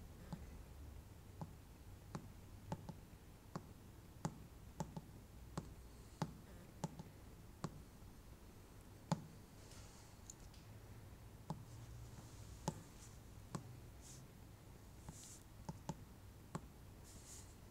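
Irregular, quiet clicks of buttons being pressed one at a time on a CNC controller's keypad as shape dimensions are keyed in, over a faint low hum.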